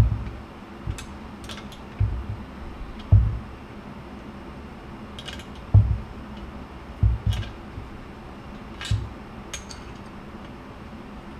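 Light metal clicks and dull knocks at irregular intervals as a hand tool tightens the spring-loaded bolts on a paramotor exhaust joint and the pipe shifts on the workbench. The loudest knocks come about three and six seconds in.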